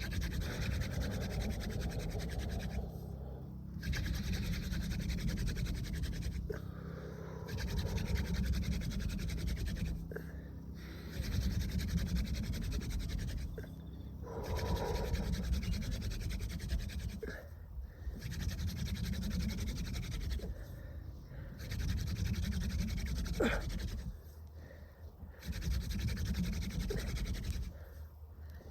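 Hand-drill fire making: a wooden spindle is spun back and forth between the palms into a hearth board, giving a dry rubbing rasp. The rasp comes in runs of about three seconds, each broken by a short pause, about eight times.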